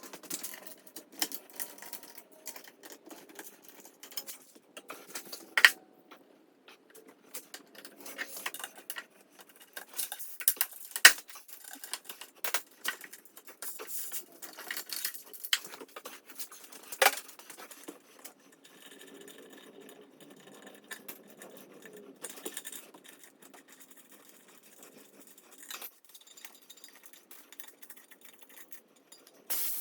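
Scattered clicks, clinks and rattles of small metal tools and bicycle wheel parts being handled during wheel disassembly, with a few sharper knocks.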